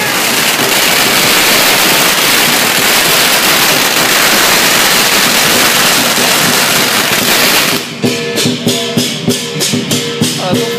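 A long string of firecrackers crackling in one continuous rapid barrage that stops suddenly about eight seconds in. Lion-dance percussion follows: drum and clashing cymbals beating about three times a second.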